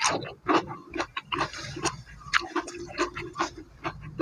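Close-up mouth sounds of eating: wet chewing and lip-smacking, with an irregular run of sharp clicks and a faint low hum that comes and goes.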